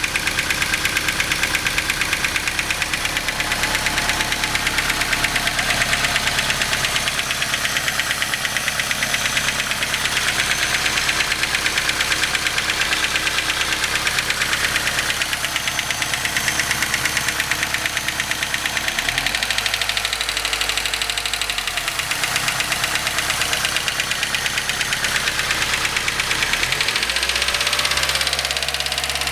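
Toyota 3T-GTEU twin-cam turbocharged four-cylinder running with a fast, regular knocking beat: the extraneous noise the owner is tracing. The engine note shifts twice, about two-thirds of the way in and again near the end.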